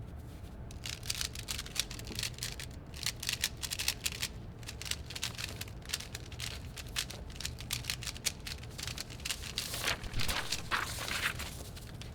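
Rapid, irregular clicking and clacking of a Rubik's cube being turned quickly, in runs with short pauses and busiest about ten seconds in.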